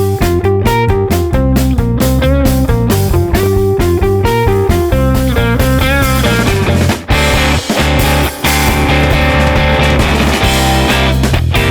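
Rock background music with electric guitar and a steady beat.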